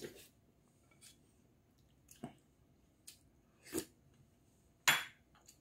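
A man eating hairtail stew with rice: several short, separate slurping and chewing sounds about a second apart, the loudest near the end.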